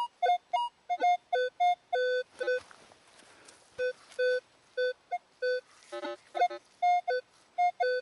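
Minelab Equinox 600 metal detector giving short target-tone beeps at several pitches as the coil is swept back and forth over a signal. The digger takes it for trash, most likely a bottle cap or a spent cartridge case. The beeps pause briefly around the middle.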